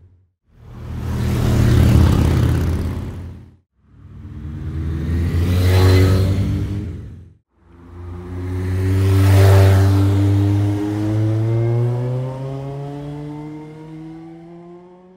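Motorcycle engine sound effects: three separate pass-bys, each swelling up and fading away. The third is longer, its engine pitch climbing steadily as it accelerates off and fades out.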